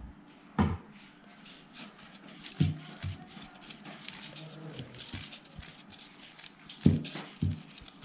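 Handling noise from a mixer-grinder motor being worked in the hands: faint rubbing and scraping of the metal frame and shaft, with a few dull knocks. The shaft is rust-jammed from water leaking out of the jar and is still stiff after oiling.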